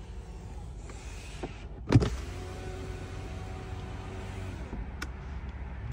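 Rear power window of a 2022 Mercedes-Maybach being lowered: a sharp click about two seconds in, then the window motor runs with a steady hum for about two and a half seconds and stops, followed by a smaller click.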